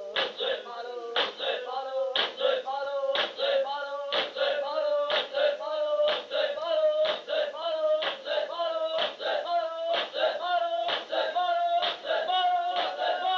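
Men's voices chanting a noha together, holding long notes that slowly rise in pitch, over rhythmic matam chest-beating at about two slaps a second.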